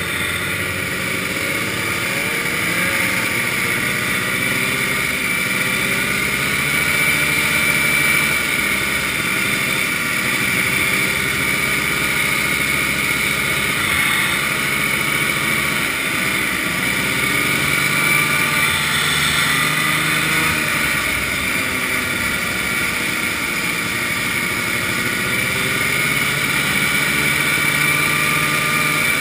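Vintage two-stroke snowmobile engine running steadily under way, with the engines of other sleds close by rising and falling in pitch.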